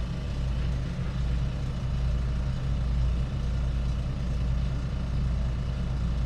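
Steady low mechanical hum, even and unchanging throughout, like the constant drone of a machine running.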